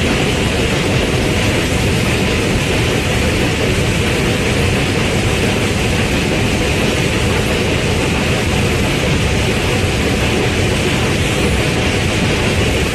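Goods train rolling across a steel girder railway bridge: a steady, loud rumble that neither rises nor falls.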